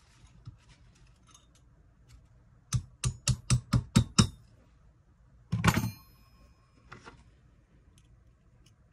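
A quick run of about eight hammer taps on an anvil, shaping a silverware bracelet piece to open up its curve. Then comes one harder metal strike that rings briefly, and a faint click.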